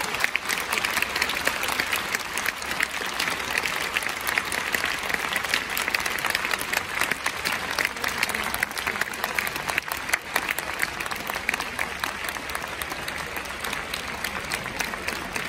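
Football stadium crowd applauding steadily, many hands clapping, in celebration of the home side's win.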